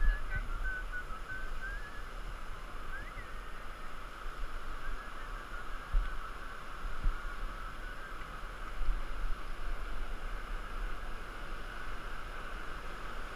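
Whitewater river running past a raft, a steady rushing hiss with occasional low bumps on the microphone. A few short chirps sound in the first few seconds.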